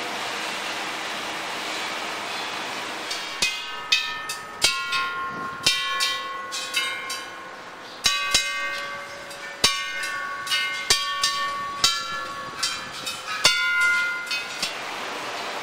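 A row of hanging metal Buddhist temple bells struck one after another, about twenty strikes. Each rings out with its own pitch, some in quick succession. Before the bells start, about three seconds of steady hiss.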